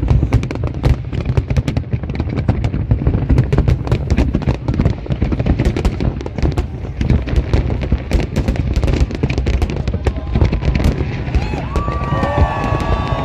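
Fireworks display going off: a dense, rapid barrage of bangs and crackling over a continuous low rumble. Near the end, pitched, gliding tones come in.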